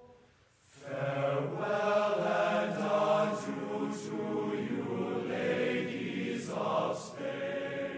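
Choral music: voices singing long held notes together, coming in about a second in and fading near the end.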